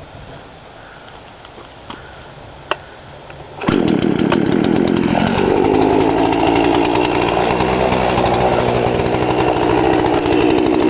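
Chainsaw engine comes in suddenly about four seconds in, revs up, then runs steadily at high speed.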